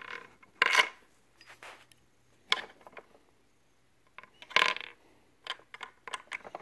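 Sharp clicks and light metallic clinks from small screws and a screwdriver handled against the plastic housing of a Philips Respironics Remstar CPAP machine as its two screws are fitted: three louder clinks, then a run of quicker light ticks near the end.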